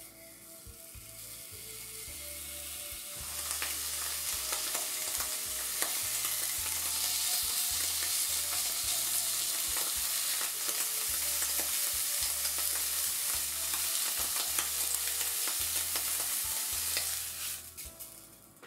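Slices of beef tongue frying in fat, a loud sizzle with constant fine crackling that swells up about three seconds in and dies down near the end.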